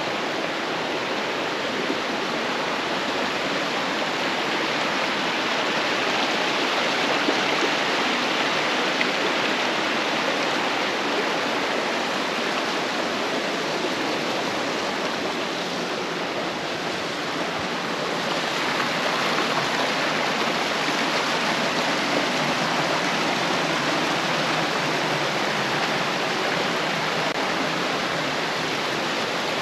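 Running water rushing steadily.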